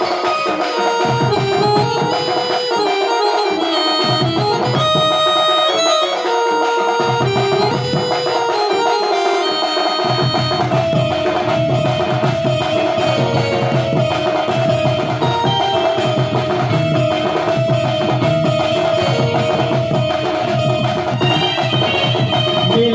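Sambalpuri badya ensemble playing: dhols and other folk drums beat a dense rhythm under a melody line.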